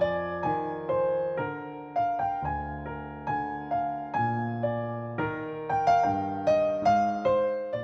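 Background music: slow, gentle piano playing single notes over sustained low bass notes, each note struck and dying away.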